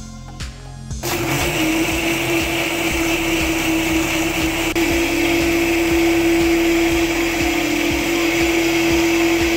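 Electric countertop jug blender running, blending mint leaves, sugar, lemon juice and water into lemonade. The motor gets louder about a second in, then runs with a steady whine whose note drops slightly about halfway through as it takes the load.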